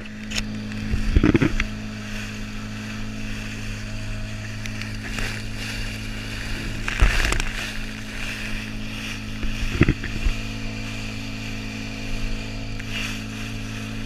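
Outboard motor of an inflatable boat running steadily at speed, a constant drone under the hiss of rushing water and wind. A few short thumps cut through, about a second in, around the middle and near ten seconds in.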